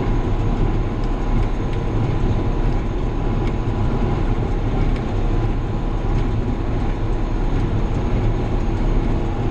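John Deere 7200 tractor's diesel engine running steadily under load at PTO speed, driving a New Holland 570 square baler, with a few faint clicks from the baler mechanism over the engine sound.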